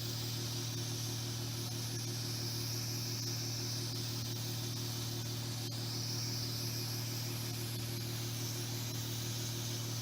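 Steady electrical hum with a faint hiss from a transformer-type electric hot-knife rope cutter, its blade removed, switched on to heat shrink tubing on a battery cable end.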